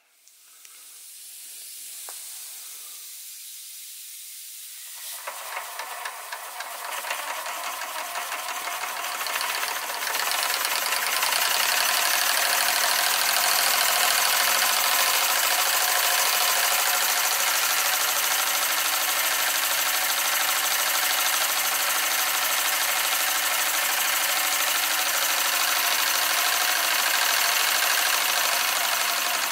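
Doll 365/1 twin-cylinder toy steam engine running on live steam: a hiss of steam at first, then over the first ten seconds or so it picks up to a fast, steady run of hissing exhaust beats and mechanical clatter.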